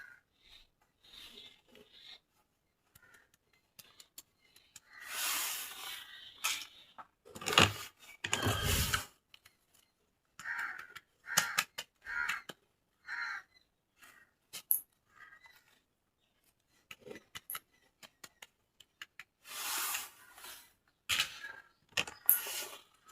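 Toy packaging and toys being handled: irregular rustling bursts with scattered clicks and taps, the loudest rustles coming in a few longer stretches.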